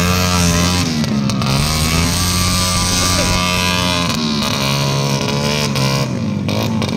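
Several dirt bike engines running and revving at once, their pitch rising and falling repeatedly.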